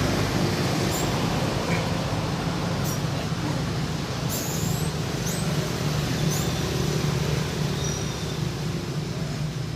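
Steady low rumble of a running vehicle with road noise, with a few short, high falling chirps around the middle.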